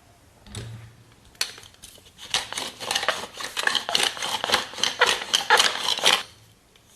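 Close-miked eating sounds: a few isolated clicks, then a dense run of rapid crisp clicks and crackles lasting about four seconds before stopping.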